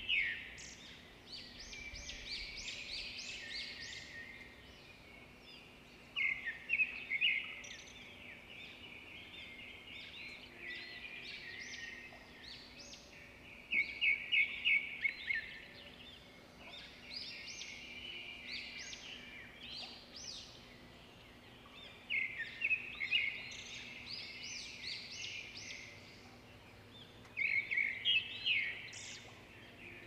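Birds chirping and calling, with a loud run of rapid chirps every several seconds and softer chattering in between.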